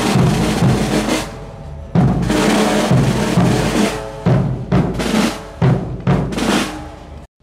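Procession band music led by snare-drum rolls and heavy bass-drum strokes, with held notes from the band beneath. It cuts off abruptly near the end.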